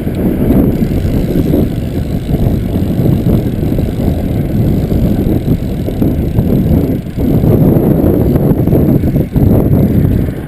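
Loud rumbling wind buffeting on the microphone of a camera carried on a moving bicycle, with brief dips twice near the end.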